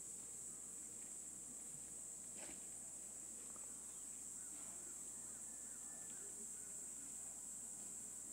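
Steady high-pitched chorus of insects such as crickets. A few faint short chirps come in around the middle, and there is a single faint tick a couple of seconds in.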